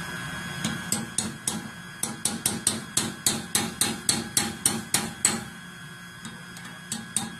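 A hammer tapping rapidly on the metal of a steam trap or steam pipe, about four to five sharp strikes a second, stopping about five seconds in, with a few more taps near the end. A steady faint tone from the steam line runs underneath.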